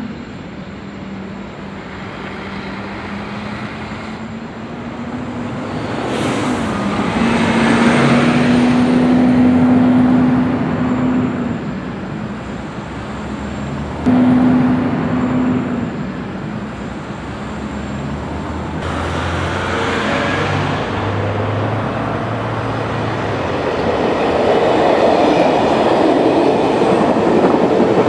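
Sound of a real train running: a steady hum under a rolling rumble that swells and fades. The sound changes suddenly a few times, once with a jump in loudness about halfway through, where recordings are joined.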